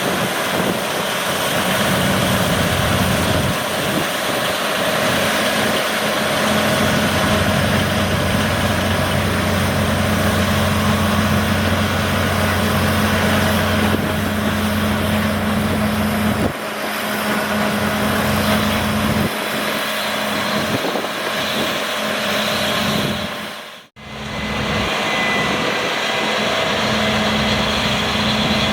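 Claas Lexion 8900 combine harvester running at work: a steady, loud machinery drone with a constant low hum. The sound shifts abruptly about two-thirds of the way through and drops out for a moment a little later.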